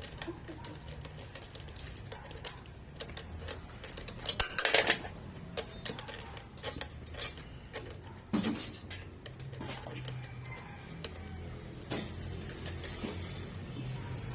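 Small metal parts and hand tools clicking and clinking as a small-engine carburetor is fitted back on, with a louder clatter about four and a half seconds in and again past eight seconds, over a low steady hum.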